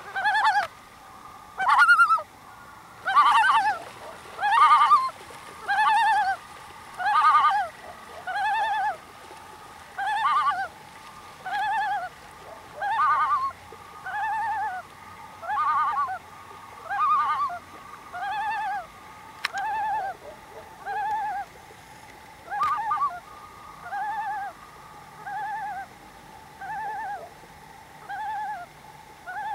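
Common loon calling: a long series of rising-and-falling notes, about one every 1.3 seconds, loud and wavering at first, then growing fainter.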